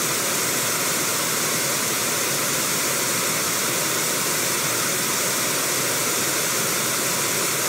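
Fast river water running over rapids: a steady, even rush with no break.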